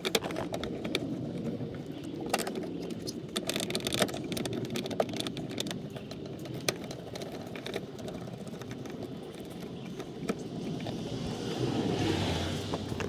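Small metallic clicks and taps of steel brake lines and their flare nuts being handled and hand-threaded into a brake master cylinder, over a steady low background rumble that swells near the end.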